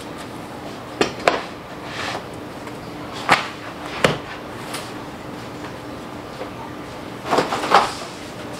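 A heavy skillet set down on a kitchen counter with a couple of sharp knocks about a second in, followed by scattered kitchen knocks and clunks, the loudest cluster near the end, over a faint steady hum.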